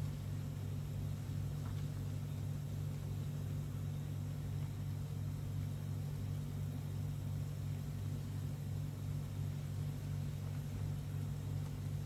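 Steady low hum of a running kitchen appliance, even in pitch and level throughout.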